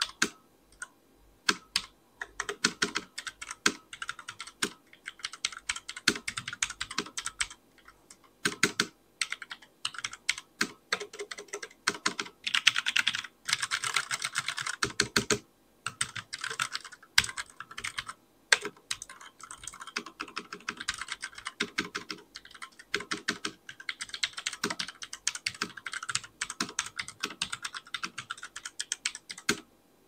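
Fast touch typing on an Armaggeddon SMK-9R RGB Falconet low-profile mechanical keyboard with linear Outemu Black switches. Rapid keystrokes come in dense runs broken by short pauses.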